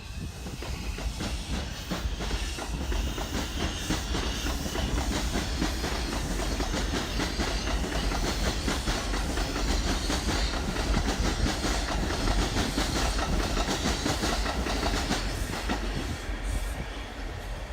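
R142 subway train running along the track, steady rumble and hiss with rapid clickety-clack of the wheels over rail joints, growing louder through the middle and easing off near the end.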